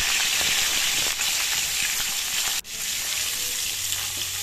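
Rohu fish heads frying in oil in a wok: a steady sizzle with small crackles. It breaks off for an instant a little past halfway, then carries on.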